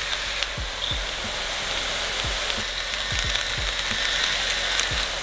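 Diced potatoes, carrots, celery and onion sizzling steadily as they sauté in oil in an enamelled pot.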